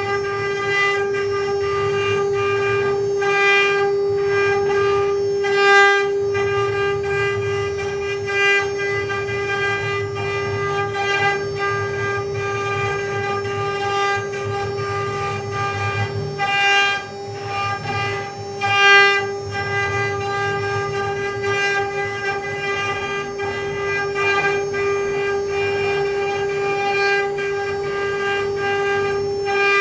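Mini CNC carving machine at work: the spindle runs with a steady high whine over a rough low rumble, with a few short louder swells as it cuts.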